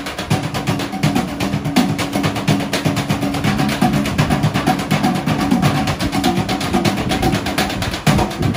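Music with fast, steady drumming over held low tones.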